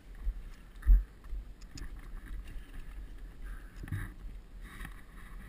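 Low rumble of wind and handling noise on a helmet camera's microphone, with one sharp knock about a second in and scattered clicks and rattles from a downhill mountain bike on a dirt trail.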